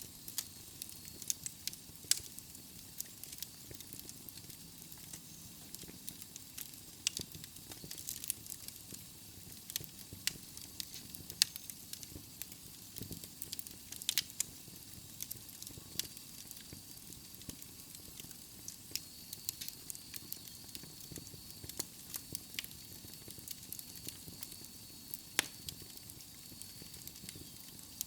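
Wood logs burning in a fireplace, crackling with frequent irregular sharp pops over a steady soft hiss. A faint, thin, high steady whistle runs through the second half.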